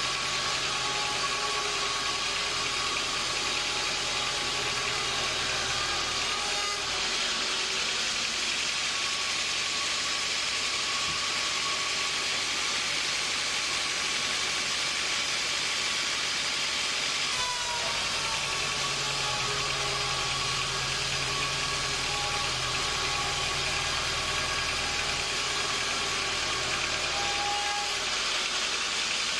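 Sawmill machinery running steadily: an engine hum under a continuous hiss. The low hum drops away for about ten seconds in the middle, with a brief falling whine as it returns.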